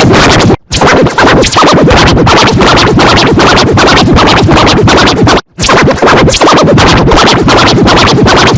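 Heavily distorted, near-full-scale electronic music with scratch-like effects, a sound-effects remix of a children's animal-sounds song. It cuts out abruptly twice: just after half a second in and again past five seconds.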